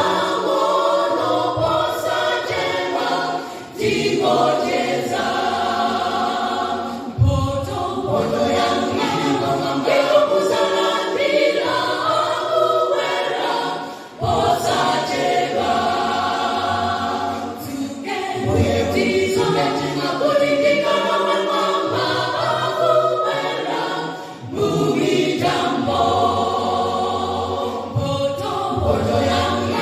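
A mixed choir singing a cappella in close harmony, in phrases of a few seconds with brief breaths between them.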